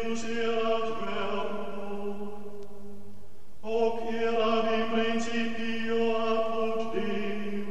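Men's voices chanting a slow, sustained melody over a steady held drone note, with a short break about three seconds in.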